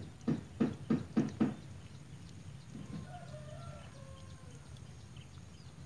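A quick run of about six short clucking calls in the first second and a half, then faint thin bird calls around the middle.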